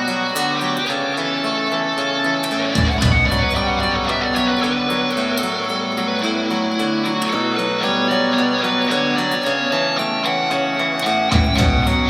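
Music played back through a DAC for a listening comparison: a guitar-led track with regular ticking percussion. Deep bass comes in about three seconds in and again near the end.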